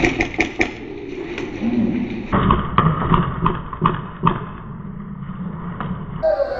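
Airsoft guns firing: short, irregular strings of sharp pops over a low rumble of movement. A wavering whistle-like tone comes in near the end.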